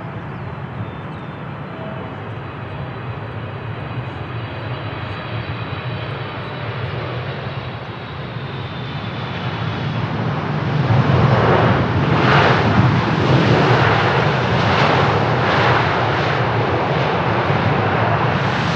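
Jet airliner engines, a broad rushing noise with a faint high whine. It grows louder about ten seconds in and stays loud, pulsing roughly once a second.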